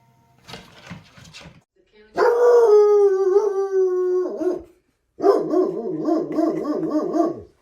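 Dog howling: one long, slightly falling howl about two seconds in, then a second long howl whose pitch wavers up and down.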